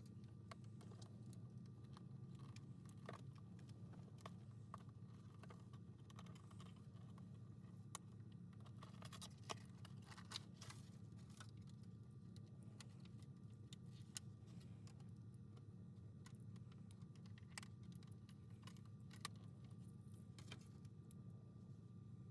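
Faint, scattered light clicks and taps of small parts being handled, over a steady low hum.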